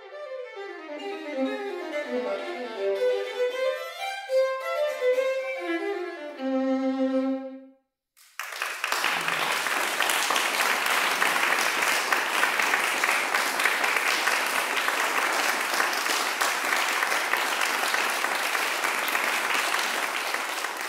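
Solo violin playing the closing bars of a piece, with rising and falling arpeggiated figures that end on a held low note. After a brief silence, an audience breaks into steady applause, which takes up the rest and is the loudest part.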